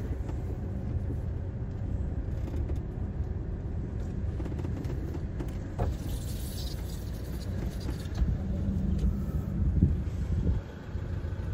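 Motorhome engine running, heard from inside the cab as it pulls away slowly: a steady low rumble, with a few brief knocks in the second half.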